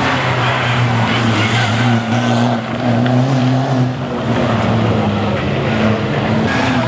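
Diesel rally car's engine running under load through a corner, a steady note that wavers with the throttle and dips briefly twice, about two and a half and four seconds in.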